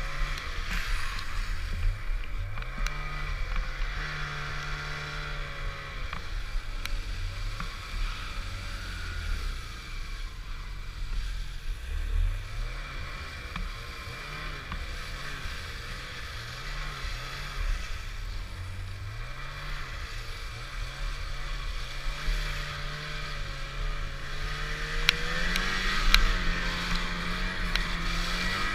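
Snowmobile engine running as the sled rides through deep powder. Its pitch rises and falls with the throttle several times.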